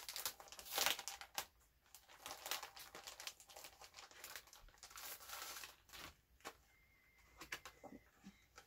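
Packaging rustling as a set of clip-in hair extensions is handled and unpacked, with bursts of rustling for about six seconds that give way to a few soft clicks and taps.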